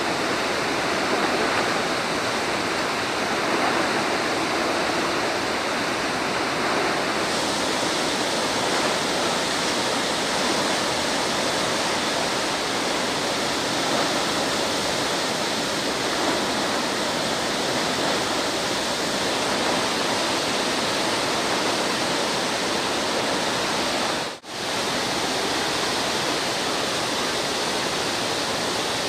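Steady rush of a river in flood, fast muddy water churning over a weir. The sound drops out for an instant near the end.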